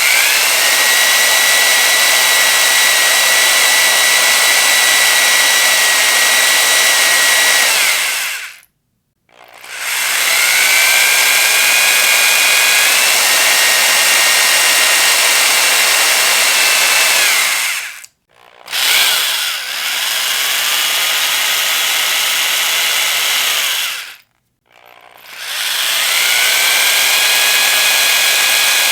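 Electric power drill running at high speed with a high-pitched whine over a rushing motor noise. It stops three times for about a second, and each time the whine rises as the drill spins back up.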